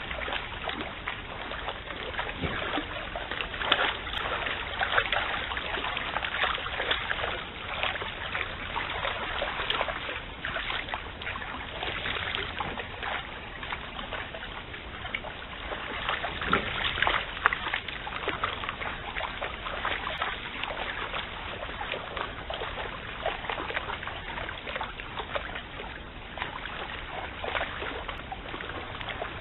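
Red deer hinds wading in a shallow flooded stream: irregular splashing and sloshing of water around their legs over a steady wash of flowing water, with a few louder splashes around 4 seconds and 17 seconds in.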